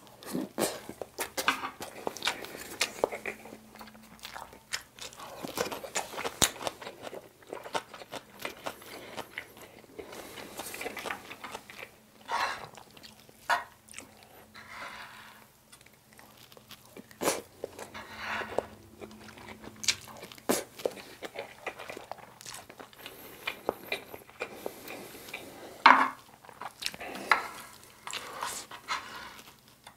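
Close-miked chewing and wet mouth sounds of someone eating soy sauce egg rice, with sharp clicks and the spoon scraping and tapping on the pan between mouthfuls.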